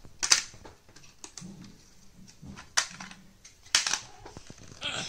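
Hard ABS plastic toy-truck parts clicking and knocking as they are handled and fitted together, with four sharper snaps among fainter taps.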